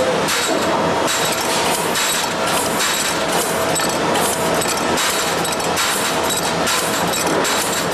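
TRU-CUT recut tube cutter running steadily, shearing short lengths off stainless steel tube in a repeating cycle of about one cut a second, each cut a brief metallic stroke over the machine's steady running noise.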